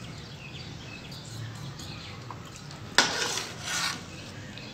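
Steel ladle stirring milk and rice in a stainless steel pot, scraping along the pot twice near the end, the first scrape sharper.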